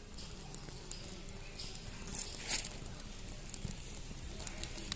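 Dry coconut palm fronds catching fire, just lit with camphor: faint crackling and ticking, with two short louder rustles about two seconds in.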